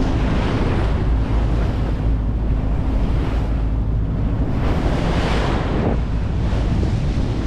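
Wind buffeting the microphone over the wash of sea water alongside a boat, with a steady low rumble and two surges of hissing water, one just after the start and a louder one about five seconds in.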